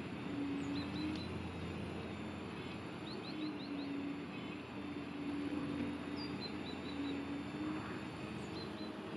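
Hydraulic pump of a 1:8-scale RC Caterpillar 390D excavator whining steadily, its pitch sagging and recovering as the boom and bucket dig and lift. Small birds chirp in short quick runs several times.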